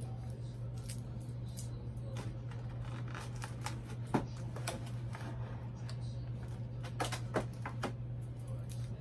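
A doll and its cardboard box and packaging being handled: scattered light clicks and rustles, the sharpest about four seconds in and a quick cluster near the end, over a steady low hum.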